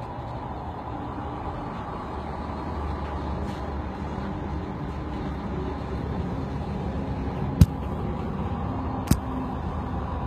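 Steady low rumble of vehicle engines, with two sharp clicks about a second and a half apart near the end.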